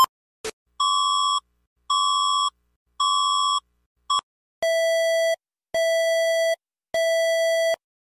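Electronic emergency alert beeps: three evenly spaced beeps about a second apart, a brief blip, then three lower-pitched beeps, like a microwave's finishing beeps.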